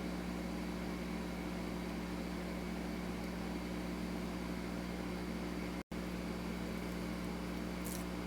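Steady mechanical hum with hiss, as from a running fan or air-conditioning unit in the room. It drops out for an instant just before six seconds in, with a faint tick near the end.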